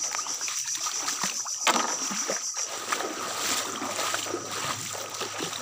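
Water splashing and sloshing underfoot as a person wades through a shallow creek, towing a small boat by a rope.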